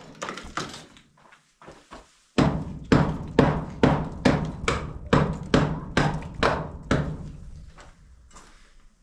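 Hammer blows on the concrete-block wall: a few light knocks, then a steady run of about eleven hard strikes, roughly two a second, that die away near the end.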